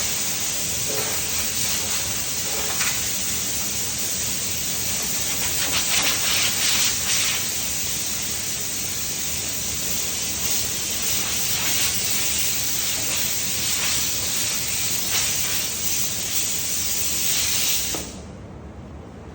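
Compressed air hissing steadily from an air blow gun, blowing sawdust off a freshly sanded tabletop, swelling briefly now and then and cutting off near the end.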